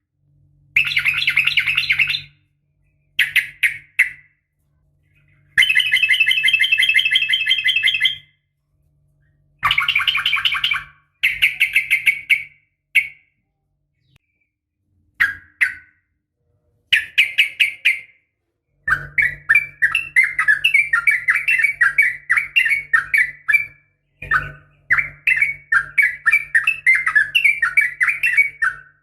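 Yellow-vented bulbuls (trucukan) calling in loud bursts of quick chattering notes, separated by short pauses. In the last third the calls run into longer, unbroken strings of rapid notes. The call is a female calling to males, used as a lure to set caged males singing.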